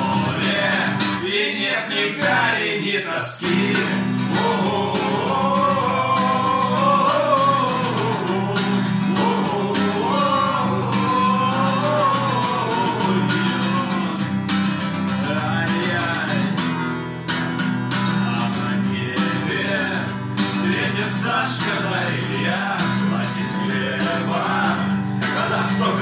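Steel-string acoustic guitar strummed as accompaniment, with a man singing along.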